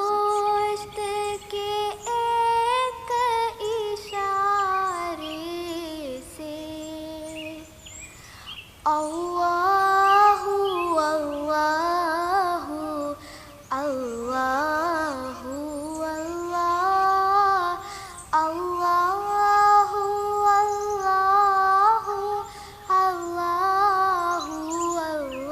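A single high voice singing long, wordless melismatic phrases of an Arabic naat, the melody gliding up and down and pausing for breath every few seconds.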